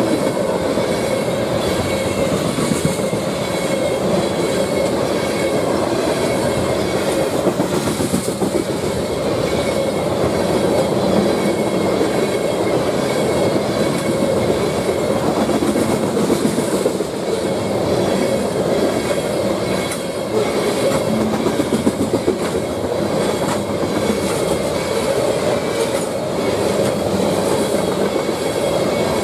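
Loaded ethanol tank cars of a freight train rolling past at close range: a steady, loud rumble of steel wheels on rail, with the clickety-clack of wheels over rail joints.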